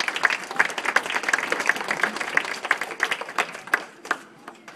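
Audience applauding: many hands clapping together, dying away about four seconds in.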